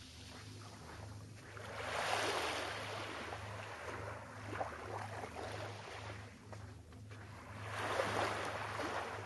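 Small waves breaking on a sandy shore and washing back, swelling about two seconds in and again near the end, with a fizzing wash between them.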